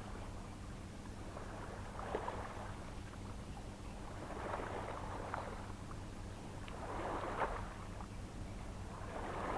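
Small sea waves washing against a rocky shore, a soft swell coming every two seconds or so.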